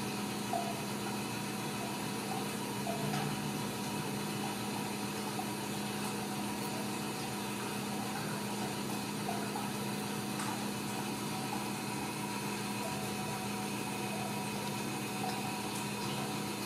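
A steady machine hum with a strong low tone and several fainter, higher steady tones.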